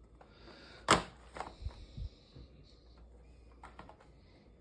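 Die-cast car packaging being handled: one sharp click a little under a second in, then a few lighter knocks and a brief rustle.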